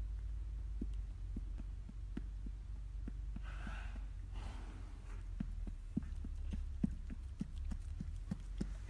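A horse sighing: a long breathy exhale through the nostrils about three and a half seconds in, in two pushes. Under it runs a steady low hum and a string of small, irregular clicks.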